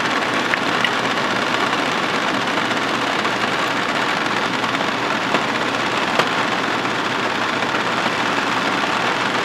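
Distilled water at a steady rolling boil in a metal pan, with a few faint ticks, as a red-rusted steel revolver cylinder sits submerged and its rust is converted to black.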